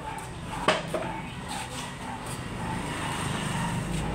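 A small wooden chair set down on a concrete floor: two sharp knocks close together about a second in, over a steady low background hum.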